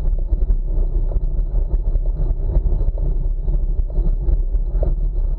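Wind buffeting the microphone of a camera on a moving bicycle: a steady low rumble that flickers rapidly, with road noise underneath.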